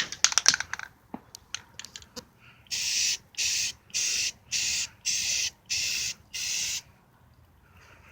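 Rust-Oleum self-etching primer aerosol can spraying in seven short, evenly spaced bursts of hiss, each about half a second long. A quick run of sharp clicks and rattles comes about a second before the spraying.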